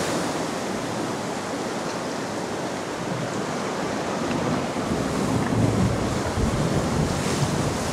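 Sea swell surging and breaking against the foot of a sea cliff: a steady rush of surf and white water, with wind buffeting the microphone.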